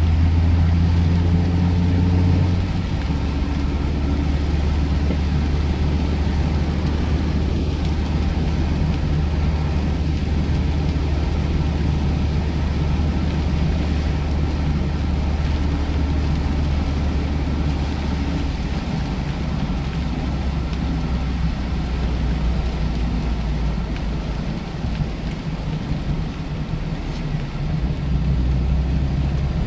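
Mazda MX-5 Miata's 1.8-litre four-cylinder engine running steadily on the move, heard from inside the cabin, under a steady hiss of rain and tyres on a wet road. The engine note drops slightly about two and a half seconds in.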